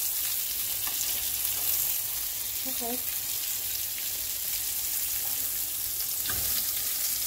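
Plant-based burger patties sizzling steadily in hot oil in a skillet, with fine crackling, while a spatula turns them; a soft thump about six seconds in.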